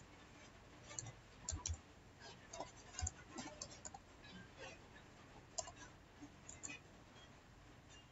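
Faint clicking of computer keyboard keys as a short word is typed. A quick run of key clicks starts about a second in, and a few more clicks come near the middle.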